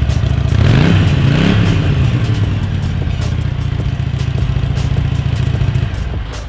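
Car engine running, blipped up and back down twice in quick succession about a second in, then holding a steady idle.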